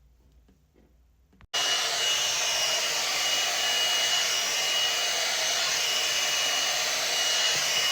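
One-step hot-air brush hair dryer switching on about a second and a half in and running with a steady blowing noise and a thin high whine.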